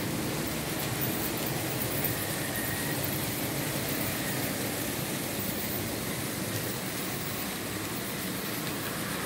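Märklin H0 model trains running on the layout's track, a steady rolling noise of wheels on rails that holds without breaks.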